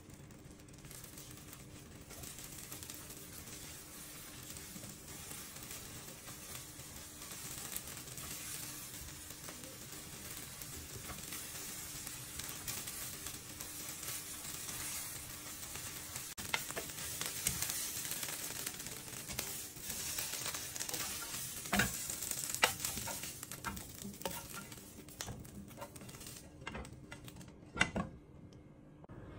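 Beaten eggs sizzling in a nonstick frying pan while a spatula stirs and scrambles them, with scattered sharp taps and scrapes of the spatula on the pan in the second half. The sizzling drops away shortly before the end, and one louder knock follows.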